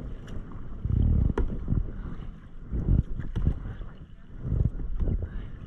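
Kayak paddling: the paddle blade splashing through the water and drips falling off it in small sharp ticks, with gusts of wind rumbling on the microphone.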